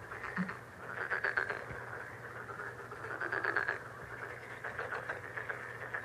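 Countryside ambience of frogs croaking in rapid pulsing trills that swell in repeated spells, over a faint steady low hum.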